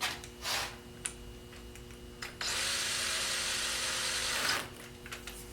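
A small wire-wheel brush spun by a power tool for about two seconds, scrubbing rust off bolt threads, with a few short scrapes and clicks before it starts.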